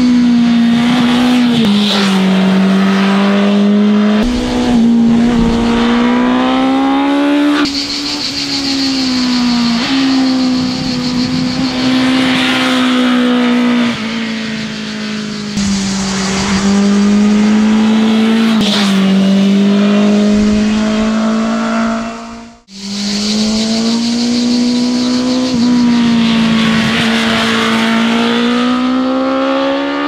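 BMW S1000RR's inline-four engine running hard, revs climbing steadily and dropping sharply several times as it changes gear. The sound cuts out briefly about three-quarters of the way through.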